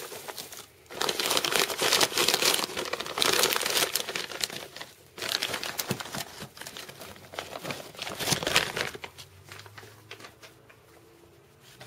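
Dry sphagnum moss and its plastic bag crinkling and rustling as handfuls are pulled out and dropped onto the terrarium substrate, in two long stretches that die down near the end.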